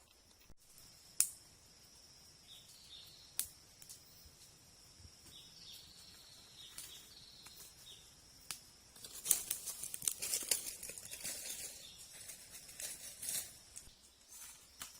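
Dry plant material rustling and crackling as it is handled, densest and loudest past the middle. There are a couple of sharp clicks near the start, and a steady high-pitched whine runs behind it.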